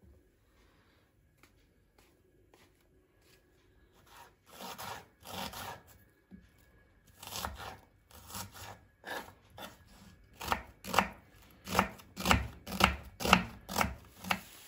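Kitchen knife chopping a peeled onion on a wooden cutting board. The first few seconds are almost silent, then a steady run of cuts at about two a second grows louder over the second half.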